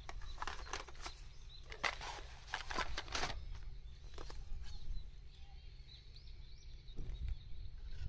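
Light clicks and clinks from small items being handled, clustered in the first three seconds, over a steady low rumble of wind on the microphone. Faint high bird chirps come in the second half.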